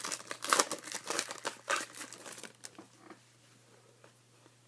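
Plastic foil trading-card pack wrapper crinkling as it is handled and torn open, a dense run of crackles that dies away a little past halfway.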